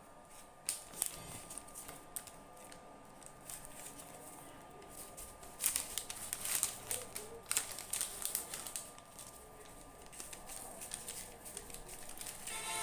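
Thin white wrapping sheet crinkling and rustling as it is unrolled by hand, in irregular bursts of crackle that are busiest around the middle.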